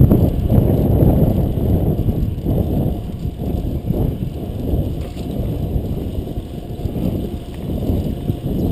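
Wind buffeting the microphone of a GoPro ridden on a fixed-gear racing bicycle at speed: a loud, uneven low noise that swells and fades.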